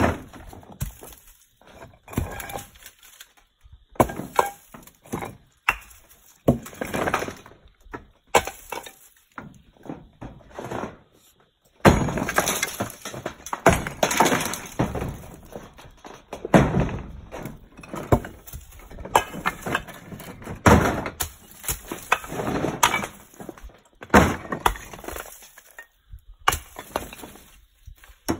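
Brick chimney being broken up with a long-handled hammer: sharp cracking blows, each followed by bricks and mortar rubble clattering and tumbling, about one strike every second or two and heavier in the second half.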